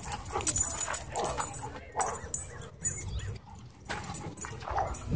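Dogs playing close to the microphone, giving short whines and yips among uneven scuffling and clattering sounds.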